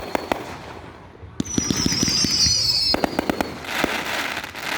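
Fireworks going off. High shrill whistles waver and sink slightly in pitch for about a second and a half, among scattered sharp pops and cracks. A hissing crackle follows near the end.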